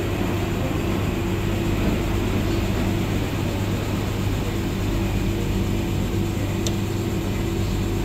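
Electrolux Professional WN6-14 commercial front-loading washing machine running with a steady, even hum of a few low tones.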